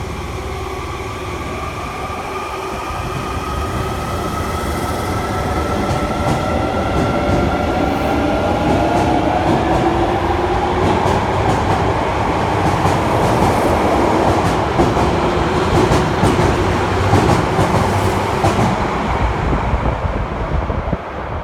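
Osaka Subway 66 series train pulling out of the station. Its inverter traction motors whine in several tones that rise steadily in pitch and grow louder as it accelerates. Wheels clack over rail joints in the middle part, and the sound drops off near the end.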